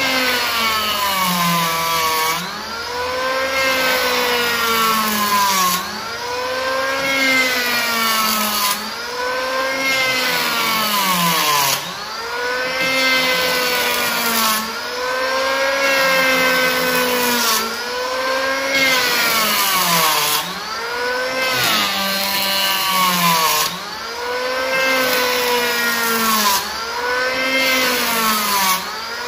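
Makita N1900B 82 mm electric hand planer running and shaving a wooden beam in repeated passes, its motor whine rising and falling in pitch about every three seconds with each pass, along with the hiss of the cutting blades.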